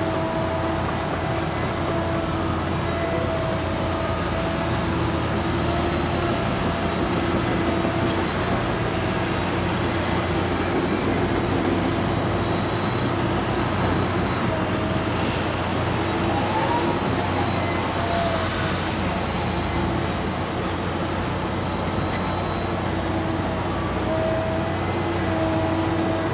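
Diesel engines of tractors and earthmoving machines running together, a steady rumble with a held hum.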